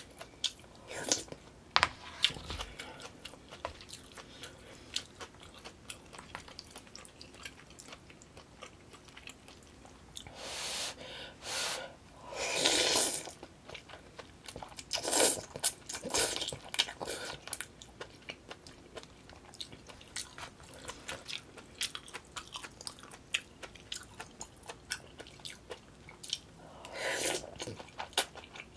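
Close-miked eating: chewing with many small wet clicks, and several slurps of noodles from a bowl of yukgaejang, spicy beef soup, the loudest about halfway through and again near the end.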